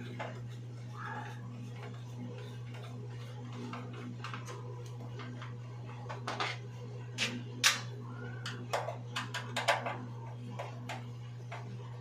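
Screwdriver clicking and scraping against the plastic cover of a wall-mounted electric water heater: a scattered run of sharp clicks and short scrapes from about halfway through, over a steady low hum.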